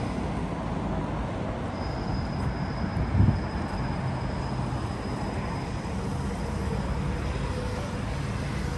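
Steady city street noise, a low rumble of traffic, with a brief low thump about three seconds in.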